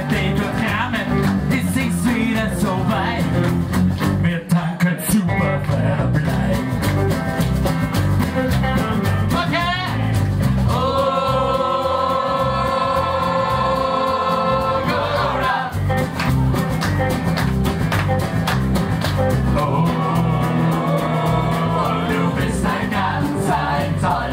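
A live band playing rock and roll on strummed acoustic guitars with a lead singer. One long note is held for about four seconds halfway through.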